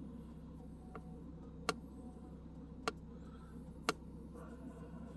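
A 1998 Chevy S10 engine idling faintly and steadily, with sharp clicks at uneven gaps, roughly one a second, over it.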